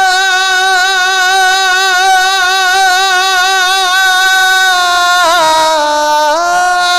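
Male naat singer holding one long note with vibrato. About five seconds in the voice makes a quick ornamented turn down to a lower note, then rises again near the end.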